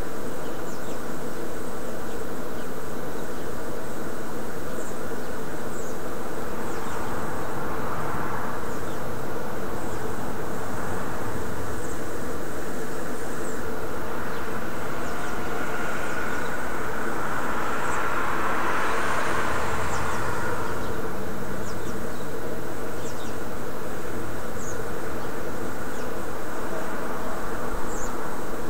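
A steady buzzing hum. A broader rushing noise swells and fades a little past halfway, and faint high chirps come now and then.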